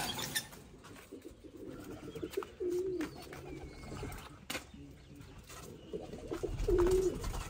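Domestic pigeons cooing: two short low coos, one about a third of the way in and one near the end, with a few light knocks in between.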